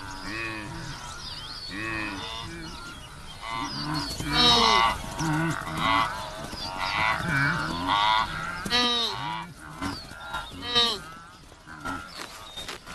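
A herd of wildebeest calling: many short grunting calls from several animals, overlapping and coming one after another, thickest in the middle.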